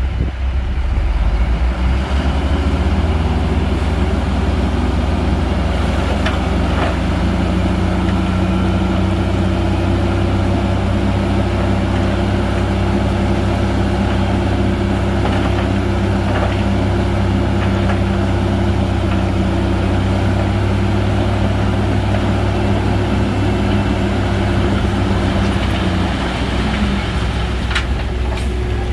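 Heavy Shantui bulldozer's diesel engine running steadily with a deep hum. The engine note shifts near the end, and a few sharp knocks sound over it.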